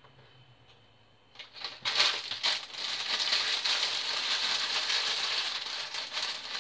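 Plastic bag of green beans crinkling and rustling as it is handled and the beans are tipped out, starting about two seconds in.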